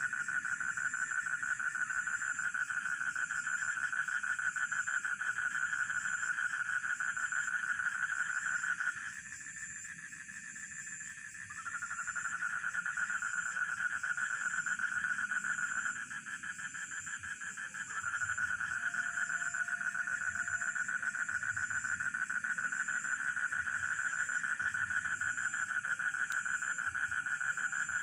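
Night chorus of rice-field frogs calling densely together, over a high, steady, pulsing cricket chirp. The frog chorus stops abruptly twice, for two seconds or so each time, then starts up again all at once.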